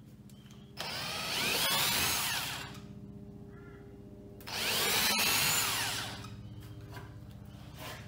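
Cordless drill with a 3 mm bit boring pilot holes into the plastic rim of a wheelie bin. It runs in two bursts of about two seconds and a second and a half, one hole each.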